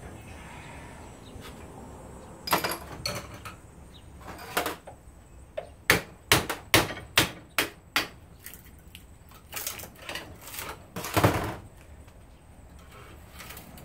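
About a dozen sharp hammer blows on a tool driven into an alternator's copper-wound core clamped in a steel bench vise. The blows come irregularly, with a quick run of about two a second in the middle.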